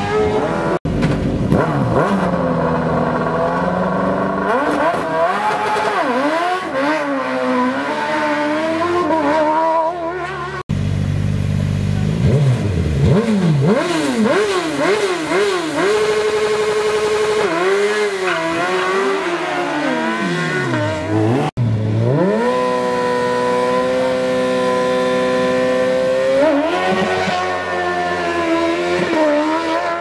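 Racing car engine revved hard, its pitch sweeping up and down again and again and at one point held at steady high revs for a few seconds, with tyre squeal as the car spins its tyres. The sound cuts abruptly three times.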